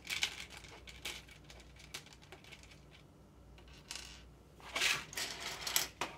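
Small plastic LEGO pieces clicking and rattling as they are picked out and handled, with a longer rustle of rummaging through pieces about five seconds in.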